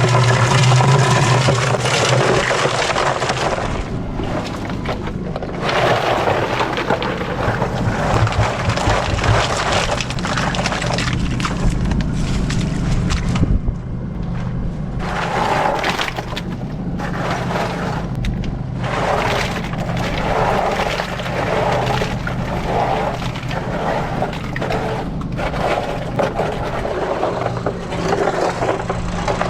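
Oysters tumbling in a cement mixer drum: the shells clatter and scrape against each other and the drum over the steady hum of the mixer's engine. The tumbling knocks barnacles off the shells.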